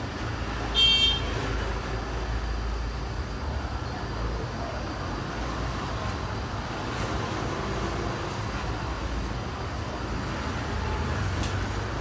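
A steady low rumble, with one short high-pitched beep about a second in.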